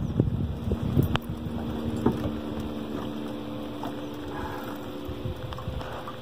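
Wind buffeting the microphone in an open fishing boat, a dense low rumble that eases a little as it goes on, with a faint steady hum underneath and a few light clicks.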